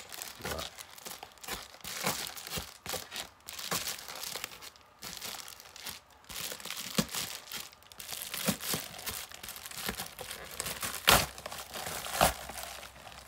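A plastic padded mailer crinkling and tearing as it is opened by hand and with a small knife. There is continuous rustling with many short crackles, and two sharp snaps about a second apart near the end.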